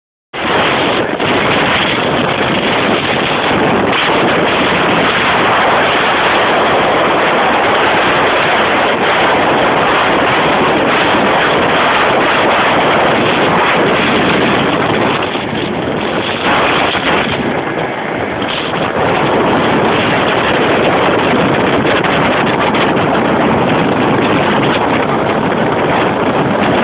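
Small motorboat under way at speed: engine and rushing water, heavily buffeted by wind on the microphone, in a loud, steady rush that eases briefly a little past halfway.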